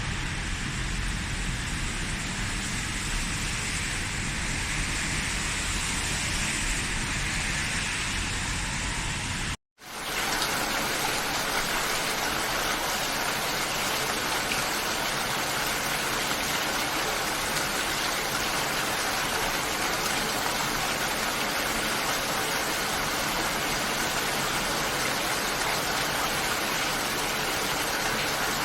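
Steady rain falling, an even hiss with no distinct drops standing out. Just under a third of the way in it cuts out for an instant and a slightly different, fuller rain recording fades back in.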